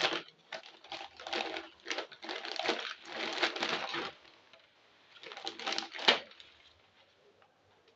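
Clattering and rustling as soda cans and bottles are shuffled and pushed into a fridge shelf, with a sharp knock about six seconds in; quiet for the last couple of seconds.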